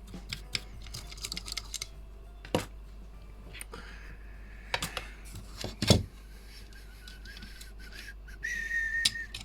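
Small parts of a microphone being handled on a workbench: light clicks and taps, two sharper knocks in the first half. Near the end a thin steady whistling tone comes in for about two seconds, stepping up in pitch once.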